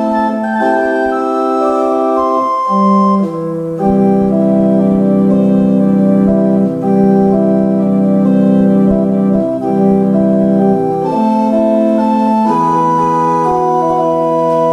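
Historic English pipe organ playing slow, held chords, the chord changing every second or two. A low bass line sounds beneath the chords through the middle of the passage.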